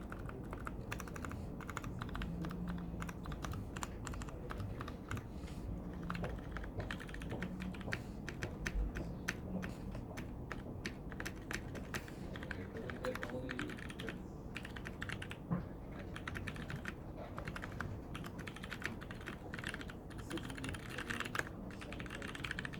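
Continuous fast typing on a mechanical keyboard with lubed Cherry MX Clear tactile switches on 62 g springs, fitted with switch stickers: a steady stream of irregular key clicks and bottom-outs.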